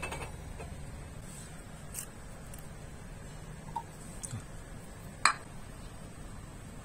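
Plastic ketchup squeeze bottle being squeezed out onto a wooden cutting board, with a few small clicks and one sharp pop about five seconds in, over a steady low background rumble.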